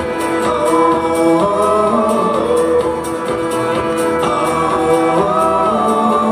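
Live rock band playing, with a male voice singing long notes that bend and slide over guitar and steady cymbal ticks.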